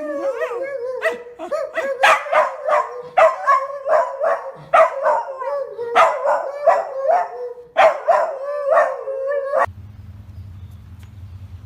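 A dog barking over and over in quick, sharp barks, about two or three a second, with a steady tone running underneath. The barking cuts off suddenly near the end, leaving a low hum.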